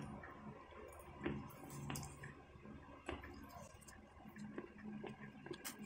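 Faint eating sounds: a few scattered soft clicks and mouth noises as stir-fried noodles are eaten with a metal fork from a plate.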